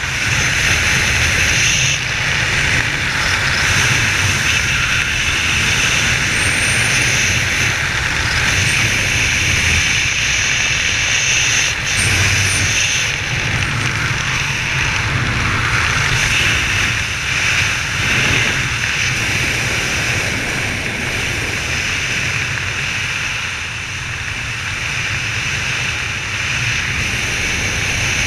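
Steady wind rushing over a helmet-mounted camera as a skydiver flies under an open parachute canopy, with a low rumble beneath the hiss.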